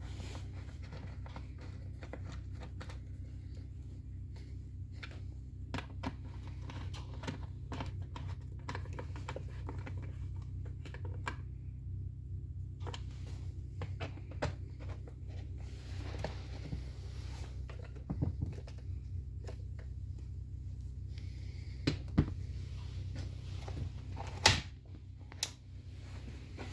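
Scattered light clicks and taps of small parts and tools being handled on a workbench, a few sharper knocks near the end, over a steady low hum.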